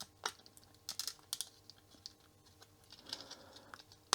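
Irregular small plastic clicks and taps as a Commodore 797M calculator's internals are pushed back into its plastic case.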